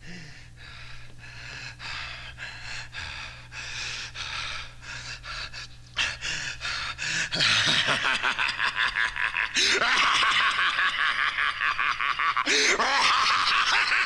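Heavy panting and gasping, a horror-record sound effect. Breaths come steadily at first and build slowly. About six seconds in, the panting turns much louder and faster, with a few groaning cries rising and falling through it.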